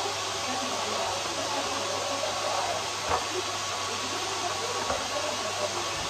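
Samsung SC4140 canister vacuum cleaner running steadily with a steady whine while its floor nozzle is pushed over carpet. Two brief knocks come about three and five seconds in.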